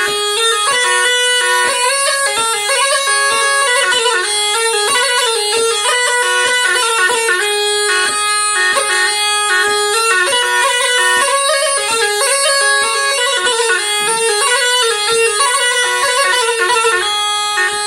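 Tulum, the Turkish bagpipe, playing a fast instrumental melody of quickly changing, ornamented notes.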